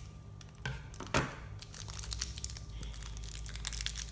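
Plastic toy packaging crinkling and rustling as it is handled and pulled open, with a louder crackle about a second in.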